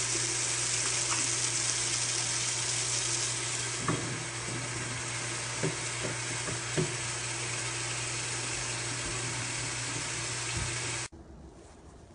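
Kitchen tap running steadily into a sink while a glass rum bottle is rinsed out, with a low steady hum underneath and a few light knocks about four, six and seven seconds in. The water sound cuts off abruptly near the end.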